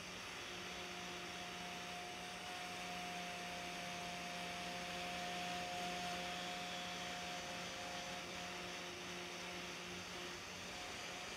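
Angle grinder with a cup wire brush running against a rusted steel knife blank, scrubbing off the rust: a steady motor hum under a brushing hiss, a little louder about halfway through.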